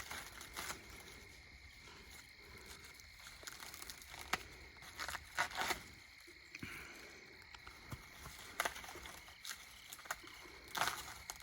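Dry corn leaves and husks rustling and crackling in short, irregular spells as ears are pulled from tall corn stalks.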